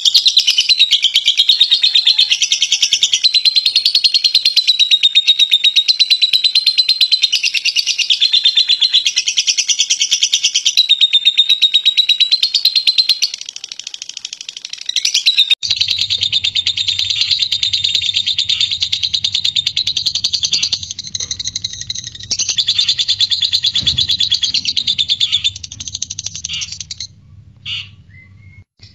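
Lovebirds singing the long, unbroken chattering song known as 'ngekek': a rapid, high run of chirps with no pauses, first from a Fischer's lovebird. After a short break about halfway, the same chatter goes on over a steady low hum, then stops near the end with a few short separate calls.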